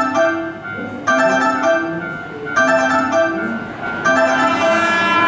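Repeating electronic railway warning chime, a short phrase of bell-like notes played over and over about every one and a half seconds, signalling a train about to pass through. The rumble of the approaching train builds underneath near the end.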